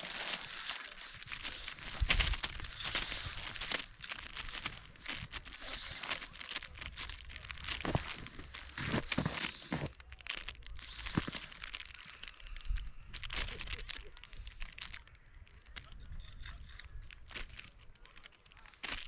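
Irregular rustling and crinkling with scattered light knocks and clicks.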